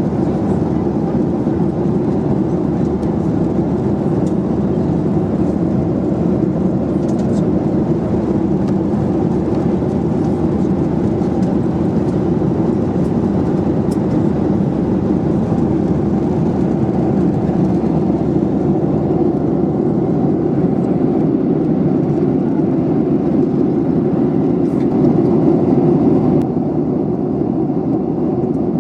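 Airliner cabin noise: a steady, deep rush of engine and airflow heard from inside the passenger cabin, with a few faint ticks and a slight swell near the end.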